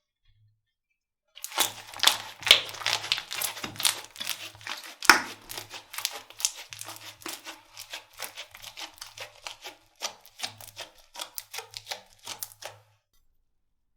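Slime being squeezed and worked by hand, giving dense crackling and popping clicks that start about a second and a half in and stop about a second before the end. A low hum comes and goes underneath.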